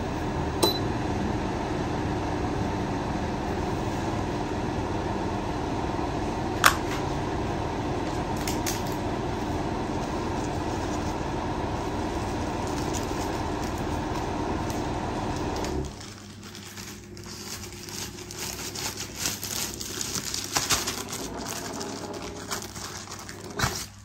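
Somogyi Home FKF 59201 wall-mounted fan heater's fan running with a steady rush of air, with a sharp click about a second in and another near seven seconds. About sixteen seconds in the fan noise stops abruptly as the heater shuts off, and quieter irregular clicks and ticks follow while the outlet flap swings shut.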